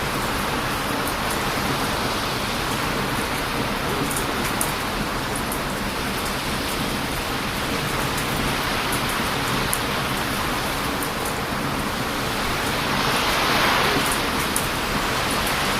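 Heavy surf breaking and rushing on a beach, with wind, as a steady loud wash that swells about thirteen seconds in. A wood campfire crackles over it with scattered small pops.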